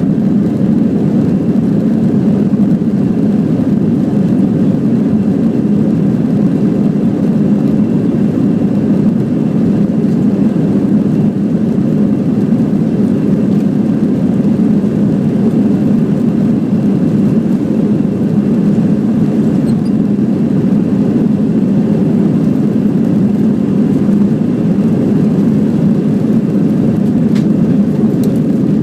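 Airbus airliner's jet engines heard as a steady, deep drone inside the passenger cabin, holding an even level without rising or falling.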